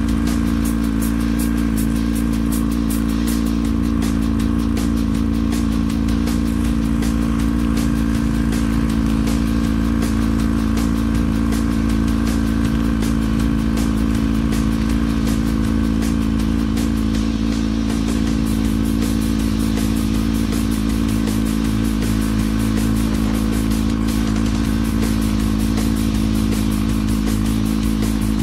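Honda CB1100SF X11's inline-four engine idling steadily.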